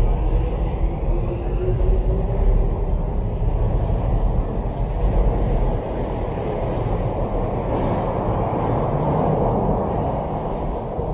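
A vehicle passing with a steady low rumble and a gliding whine over the first couple of seconds, then a rushing noise that builds about seven seconds in.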